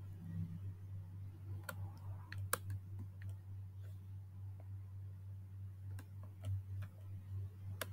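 Scattered clicks of a computer mouse, a few at a time, while a dropdown is worked, over a faint steady low hum.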